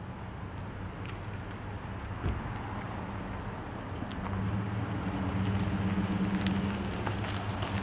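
Lifted Chevrolet Silverado pickup driving slowly toward the camera, its engine hum growing louder as it nears in the second half. There is one brief knock about two seconds in.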